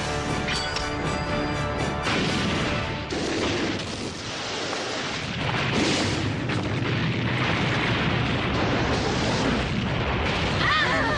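Action-film soundtrack: music with held notes, then from about two seconds in a dense run of explosions and booming blasts over the music.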